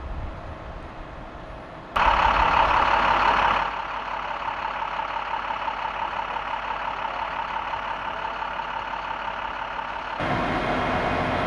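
A vehicle engine running steadily. It comes in suddenly and loud about two seconds in, eases off a second or so later, and steps up again near the end.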